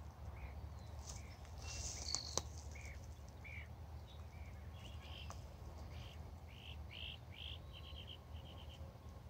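Songbirds calling in the background: a string of short chirps, then quick trills near the end, faint over a steady low rumble. A brief rustle with a couple of clicks about two seconds in.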